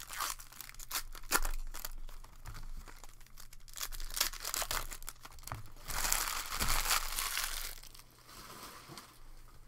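Foil trading-card pack being torn open by hand: a run of sharp crackles and rips of the wrapper, with a louder stretch of crinkling about six seconds in, then quieter.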